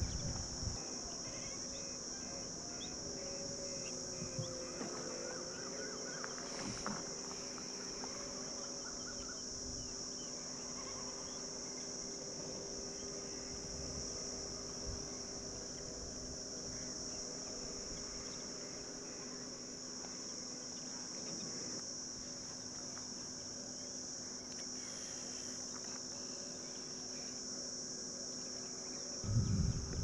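Steady high-pitched insect chorus, cricket-like, with a faint low hum underneath. A louder low rumble starts near the end.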